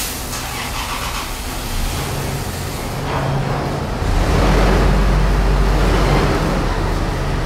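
Toyota Land Cruiser's V6 petrol engine idling, a steady low hum inside the steel container that grows louder about four seconds in.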